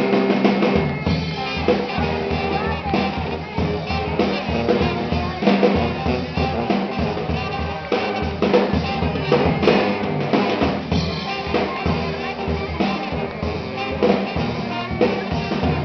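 Live brass band with drum kit playing: sousaphone, trumpet, saxophone and trombone over a steady drum-kit beat with snare and bass drum hits.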